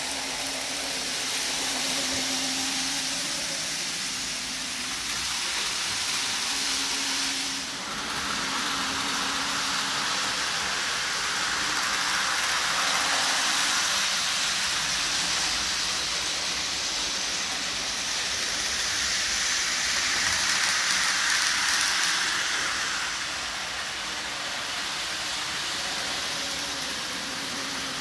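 N gauge model trains running on the track: a steady whir of small locomotive motors with the hiss and rattle of wheels on rail, with a brief dip about eight seconds in.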